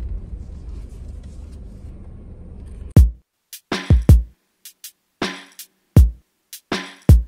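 Low, steady rumble of a car cabin as the Subaru rolls into a parking space, cut off suddenly about three seconds in by loud background music: a drum-machine beat with deep booming kicks and sharp snare and hi-hat hits.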